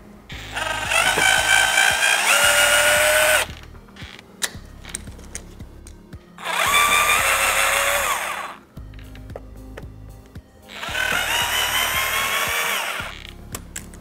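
Cordless drill backing out the screws of a door's latch plates in three bursts of two to three seconds each, its motor whine shifting in pitch within each burst.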